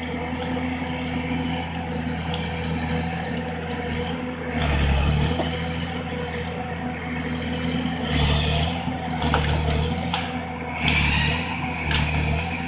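Timberjack wheeled forestry harvester's diesel engine running steadily and surging several times under hydraulic load as the boom and harvester head move. A burst of higher-pitched noise comes near the end.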